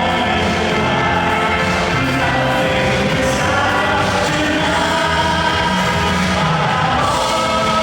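Music with several voices singing together, running steadily.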